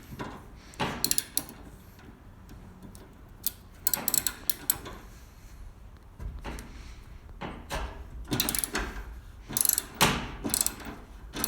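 Ratchet wrench clicking in short bursts as the nuts holding a garage door torsion spring on its shaft are loosened.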